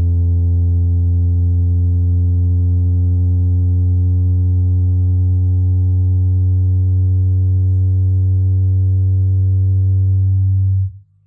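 Yamaha YST-SW030 8-inch powered subwoofer playing a steady deep bass test tone with a stack of overtones above it, cutting off suddenly near the end.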